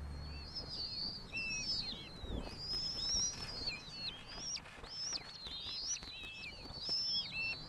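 Ferruginous hawks calling: a run of high, squealing calls that overlap and bend up and down in pitch, as an adult flies in to the nestlings with prey.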